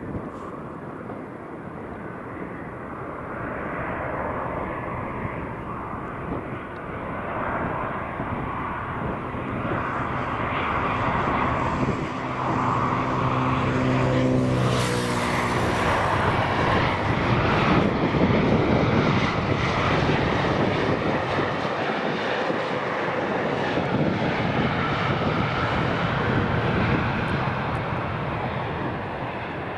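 Jet airliner passing by: its engine noise swells to a peak a little past halfway and then fades, with the engine tones sliding down in pitch as it goes past.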